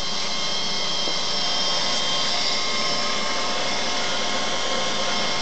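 Silverson high-shear mixer running steadily at high speed, its motor and submerged mixing head making an even whirring with a high whine as it churns the liquid.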